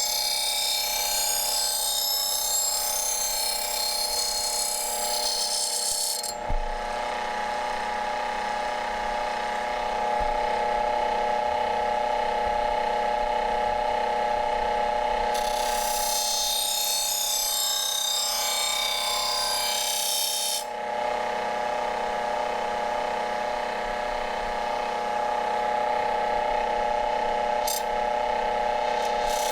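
Motor-driven paper sharpening wheel running with a steady whine while a knife edge is drawn across it to polish the edge to a mirror finish. Two long passes of hissing scrape, one from the start to about six seconds in and another from about fifteen to twenty seconds in, with a single thump just after the first pass.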